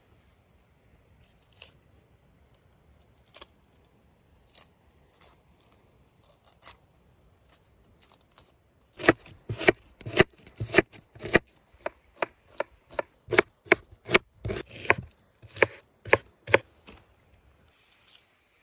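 Knife chopping an onion on a wooden cutting board. There are a few light cuts at first, then about halfway through a quick run of sharp knocks of the blade on the board, about two to three a second, which stops shortly before the end.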